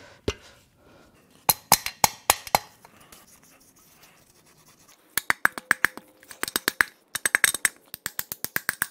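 Hammer tapping on a long bar to drive a rust-stuck piston out of the engine block's bore, metal on metal: a handful of separate taps, a pause of a couple of seconds, then quick runs of about six light taps a second as the top ring is forced past the ridge.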